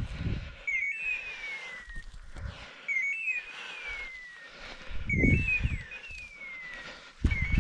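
Hunting dog's beeper collar sounding a falling hawk-scream call every two seconds, each call the same short stepped chirp followed by a downward glide. Low rustling thumps come and go under it, loudest about five seconds in.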